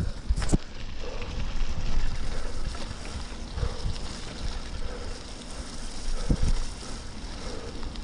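Wind buffeting an action camera's microphone as a bicycle rolls along a wet gravel track, with tyre noise on the wet surface. Short knocks from bumps come just at the start, about half a second in, and about six seconds in.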